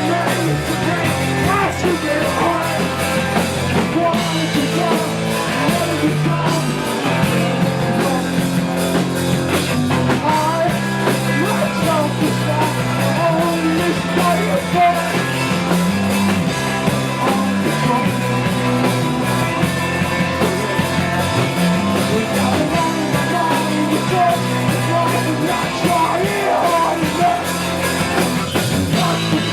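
Rock band playing loudly and steadily through a passage of a song.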